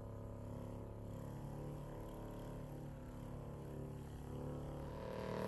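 Handheld deep tissue massager running, its motor giving a steady, even hum.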